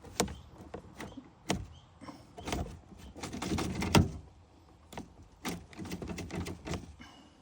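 Door latch mechanism and its cable being handled and fitted: a series of sharp plastic and metal clicks, knocks and rattles, busiest in the middle, with one loud knock about four seconds in.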